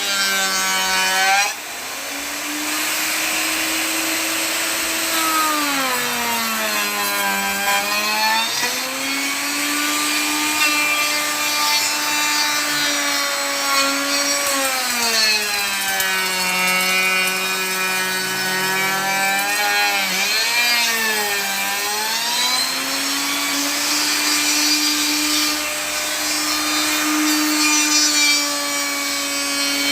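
Electric wood router cutting a decorative profile into the wood of a cabinet door. The motor runs continuously, its pitch sagging under load and climbing back several times, most deeply around a quarter of the way in and again past the middle.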